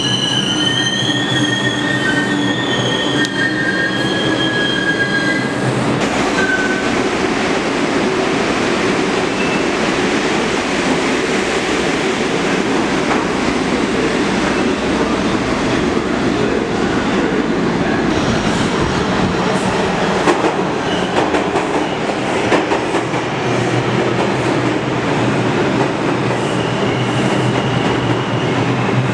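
New York City subway trains running through the station. For the first few seconds the wheels squeal in high, wavering tones. Then comes a steady rumble and clatter of the cars on the track, with a low hum returning near the end.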